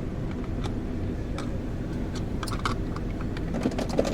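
Steady low rumble of a running vehicle heard from inside, with scattered light clicks and rattles.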